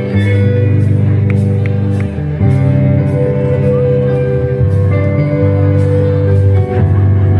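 A live band of electric guitars and keyboard plays a slow song through a PA. Held chords and bass notes change every couple of seconds over a light ticking beat.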